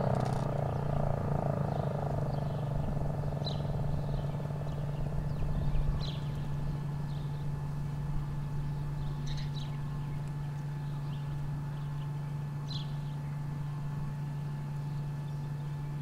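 Outdoor ambience: a steady low hum with short, high bird chirps every few seconds. A wavering tone fades away in the first two seconds.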